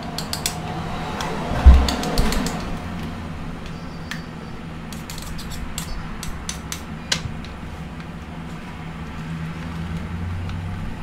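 Kitchen handling noise: scattered light clicks and knocks of utensils and dishes on a counter, with one heavy thump about two seconds in, over a steady low hum.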